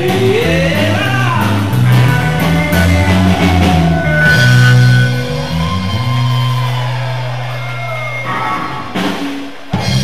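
Live rock-and-roll band of electric bass guitar, hollow-body electric guitar and drums, with a male singer, playing the end of a song. About four seconds in the drumming stops and the band holds a long final chord that slowly fades, with one last short hit near the end.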